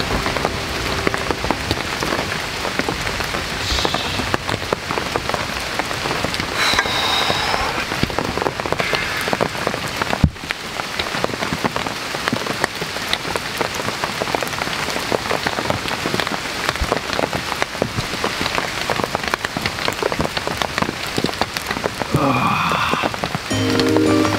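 Heavy rain falling steadily, a dense hiss of many small drops.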